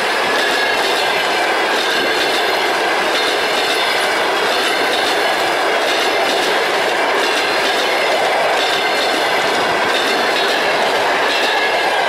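Russian passenger coaches rolling past at speed: a steady rumble and rattle of steel wheels on the rails, with a faint steady whine in it.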